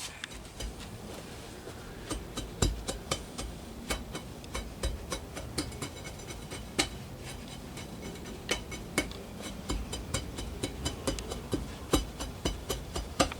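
Crushed-rock track ballast clicking and clinking as it is shifted by hand around the track, with an irregular run of sharp clicks and a few dull knocks.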